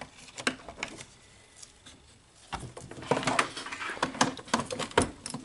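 Plastic wiring-harness plugs on a coffee machine's control board being pulled and pushed back in by a gloved hand. A few sharp clicks come first, then a busier run of clicks and rustling of wires and plastic from about halfway through.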